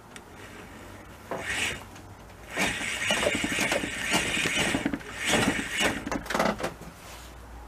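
Tongsheng mid-drive e-bike motor, its crank turned by hand, with the gearing inside clicking and rattling in three spells: a short one, then two longer ones. The owner calls the motor broken.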